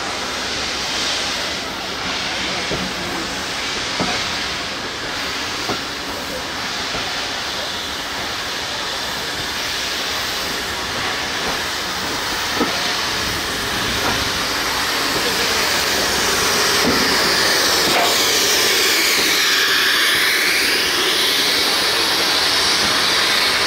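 Steam locomotive venting steam: a steady hiss that grows louder about two-thirds of the way through, with a few light knocks.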